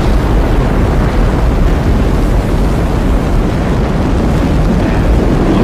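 Space Shuttle launch: the main engines and solid rocket boosters firing at liftoff, a loud, steady rumble heaviest in the low end.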